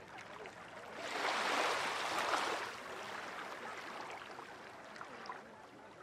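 A sea wave washing in on the shore: a single swell of rushing water that builds about a second in and dies away over a second and a half, over a low steady wash of the sea.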